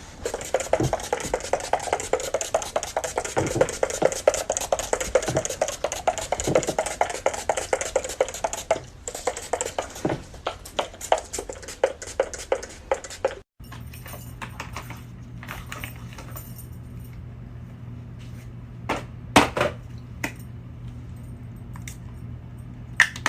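Rapid, dense clattering and clinking of hard objects for about thirteen seconds, then after a sudden break a steady low hum with a few separate knocks.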